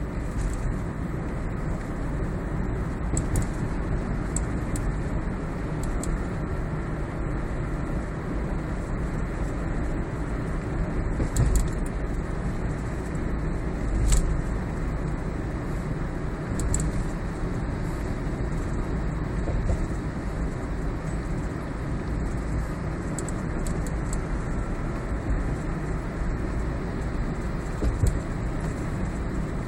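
Toyota Prius cabin noise on the move, a steady low road rumble, with short irregular clicks and rattles from under the instrument cluster: the abnormal dashboard noise.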